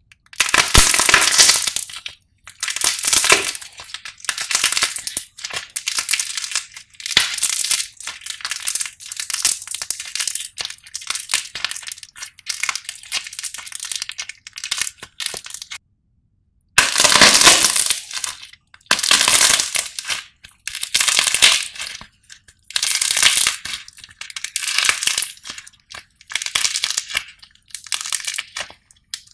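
Hardened painted clay coating cracking and crunching over soft white clay as hands squeeze, tear and knead it, in repeated bursts every second or two, with a short silent break a little past halfway.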